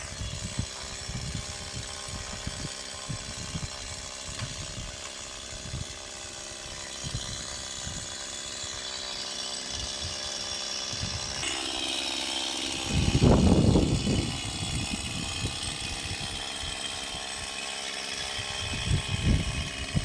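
Mini chainsaw motor running with a steady whine, its pitch shifting a little past halfway. Low rumbling bumps on the microphone come throughout, with a louder one about two-thirds in.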